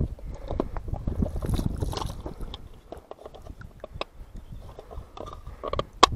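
Loose rocks knocking and scraping against each other as a gloved hand works among them to free a rusted tackle box, with one sharp click near the end.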